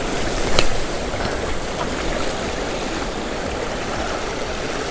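Sea water washing and lapping steadily around shoreline rocks. About half a second in, a sharp click and a brief high swish come as a lure is cast out on a spinning rod.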